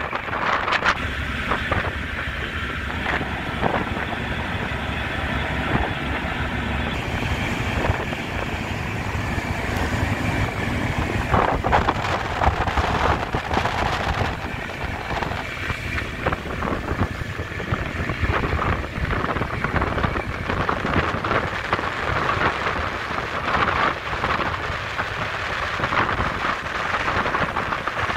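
Wind buffeting the microphone in gusts over a steady low engine rumble.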